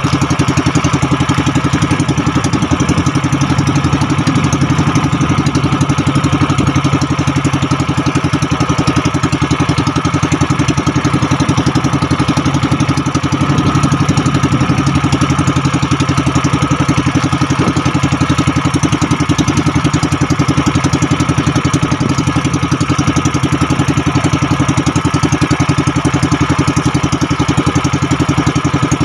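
Small fishing boat's engine running steadily at trolling speed as it pulls a lure, a constant drone with a fast, even firing beat.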